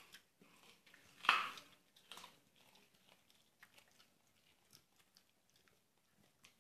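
Cavalier King Charles spaniel chewing a whole raw carrot, with one loud crunch a little over a second in, then irregular softer crunching bites.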